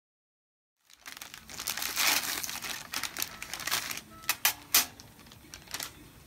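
Sterile surgical packaging crinkling and rustling as it is handled and opened, starting about a second in, followed by a few sharp clicks near the end.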